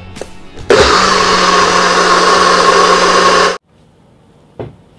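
NutriBullet personal blender running in one short pulse of about three seconds, mixing sea moss gel with blended young coconut. A steady motor hum sits under the whir, and the sound cuts off suddenly. A light knock follows near the end.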